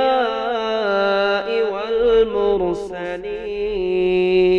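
A single voice chanting an Arabic supplication in a slow, melismatic style, the pitch winding up and down, then settling into a long steady held note near the end.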